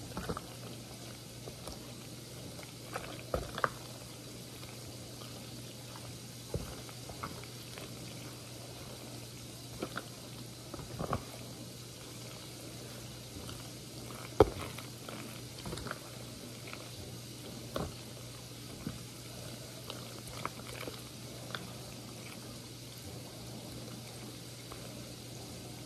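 Thick cheesy macaroni being stirred in a foil pan with a wooden spoon: soft squishes and occasional short taps and crinkles from the foil, over a steady low hum.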